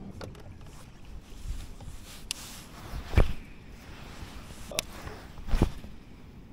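About four separate knocks and dull thumps from handling and movement aboard a small fibreglass boat as an angler swings a baitcasting rod. The loudest thumps come about three seconds in and again near the end.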